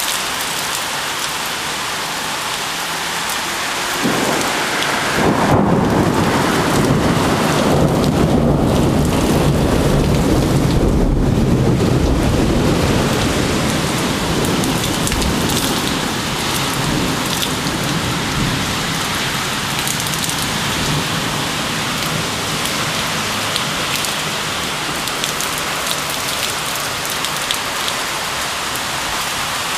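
Heavy rain pouring down with a steady hiss. About four seconds in, a long rumble of thunder sets in, rolls on for around ten seconds, and then fades back under the rain.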